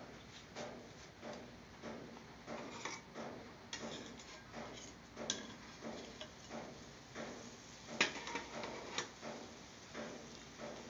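Faint, fairly regular ticking, about two ticks a second, with one sharper, louder click about eight seconds in.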